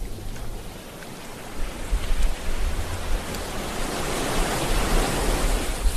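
Sea waves washing in: a continuous rush of surf that eases about a second in, then swells again as the next wave builds and breaks near the end.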